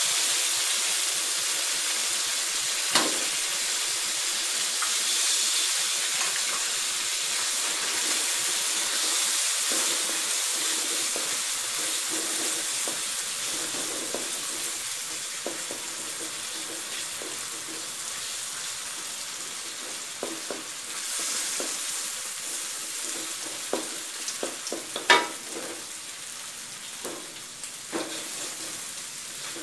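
Egg and sliced pork sizzling in hot oil in a wok, stirred and scraped with a wooden spatula. The sizzle slowly gets quieter, and the spatula knocks sharply against the wok a few times, loudest near the end.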